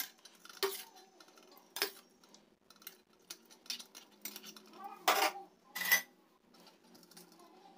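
A steel spoon clinks and scrapes against a small stainless-steel mesh strainer and steel bowls while mashed, boiled tomato is pressed through the strainer: a few sharp metallic clinks, the loudest two about five and six seconds in.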